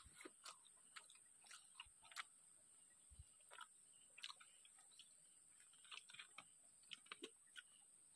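Faint, irregular mouth clicks and small crunches of a person chewing food, scattered across the few seconds.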